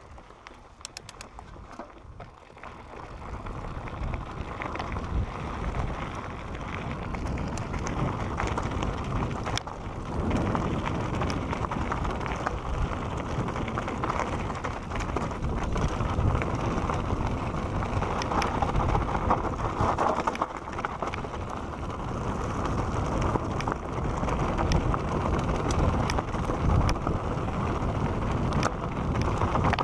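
Santa Cruz Bronson mountain bike descending a dry dirt and rock singletrack: tyres rolling over dirt with many small clicks and rattles from the bike, and wind buffeting the microphone. It grows louder over the first few seconds as speed builds, then stays loud.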